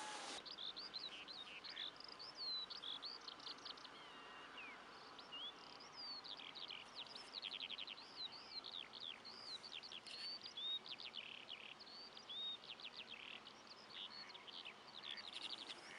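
Small songbirds singing faintly: a continuous run of short chirps, slurred whistled notes and quick trills, over a steady faint hiss.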